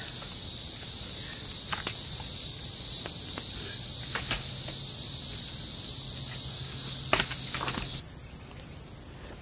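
Insects droning steadily with a high, even buzz, with a few faint snaps mixed in.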